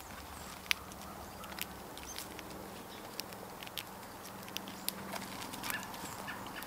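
Grackles and blue jays foraging on dry forest-floor litter: irregular sharp taps and light rustles from pecking and hopping on wood and debris.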